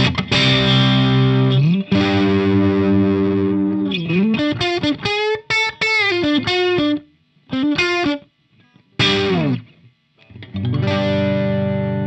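Greco SE 600 electric guitar played through a miked Laney VH100R valve amp. It starts with sustained chords, then a lead phrase with string bends and vibrato about four seconds in, a few short stabbed notes, and near the end a chord left ringing.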